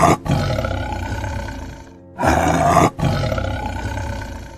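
Two long big-cat roars, each lasting about two seconds, over background music.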